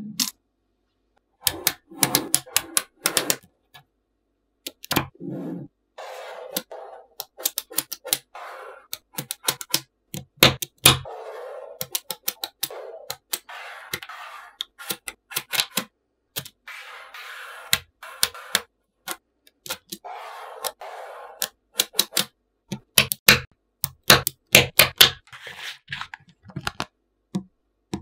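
Small neodymium magnetic balls clicking sharply as they snap onto one another, many in quick, uneven runs, with stretches of softer rattling between the clicks. The sound cuts out to silence a few times, near the start and around four and five seconds in.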